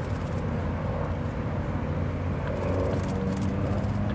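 Yak-50 aerobatic plane flying overhead, its nine-cylinder radial engine and propeller droning steadily and growing louder in the last second or so.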